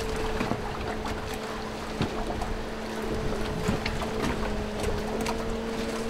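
A boat motor running steadily at one even pitch, with a haze of wind and water and a few scattered small knocks.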